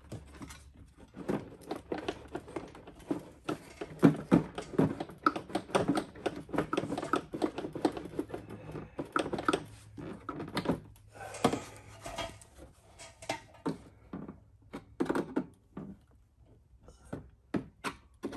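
Hard plastic clicking, knocking and creaking in quick irregular strokes as a mower's plastic top cover is tugged and worked, still held down by its clips. The strokes thin out near the end.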